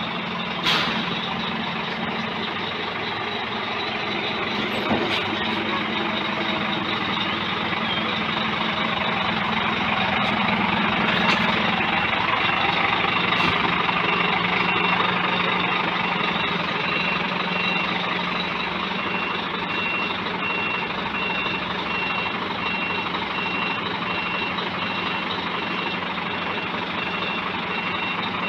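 Heavy diesel truck engine running steadily, with a sharp knock about a second in. From about halfway through, a reversing alarm beeps at a steady, even pace.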